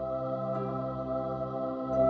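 Ambient outro music: a steady held chord.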